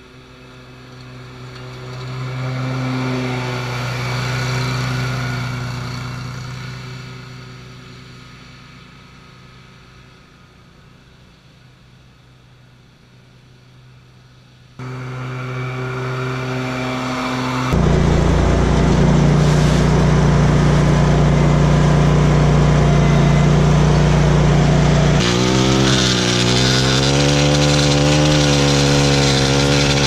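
Exmark Lazer Z zero-turn mower engine running as the mower drives past, growing louder and then fading. It is then heard up close, running steadily and louder. Near the end a Stihl edger's small engine takes over, its pitch wavering up and down.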